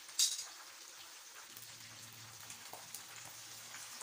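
Steamed chicken deep-frying in hot oil on a high flame: a steady sizzle with scattered small crackles, and one sharp click about a quarter second in.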